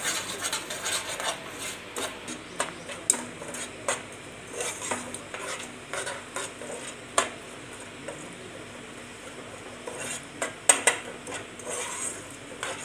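Steel spoon stirring melting sugar in a saucepan, scraping the bottom and knocking against the sides in quick irregular strokes, with a couple of sharper knocks near the end. The sugar is being melted down without water into syrup for peanut chikki.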